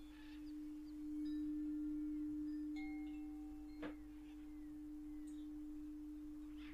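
A Tibetan singing bowl holding one steady low hum that swells about a second in and slowly fades. Faint jungle bird calls sound behind it, with a sharp click a little before four seconds in.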